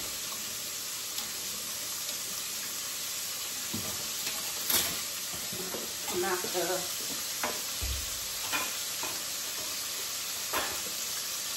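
Food frying in hot oil in a skillet on an electric stove, a steady sizzle, with a few light knocks and clicks and a low thud about two thirds of the way through.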